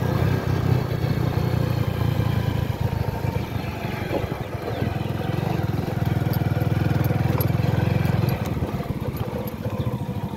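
Honda motorcycle engine running under way, heard from the rider's seat as a steady, rapid low drone. The engine note eases about eight seconds in.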